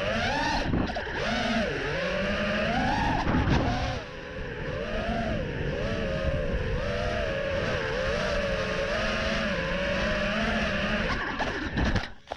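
FPV racing drone's motors whining, the pitch swinging up and down over and over as the throttle is worked through the run. The sound drops out abruptly near the end.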